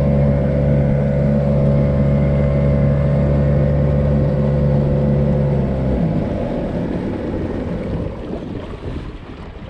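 Small fishing boat's outboard motor running steadily under way. About six seconds in the engine note cuts off, leaving the rush of water and wind as the boat coasts.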